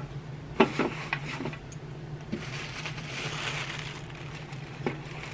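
Clear plastic bag crinkling as it is handled around a grill part, after a few light clicks and knocks from the parts being handled.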